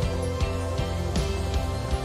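Instrumental background music with sustained tones over a steady beat.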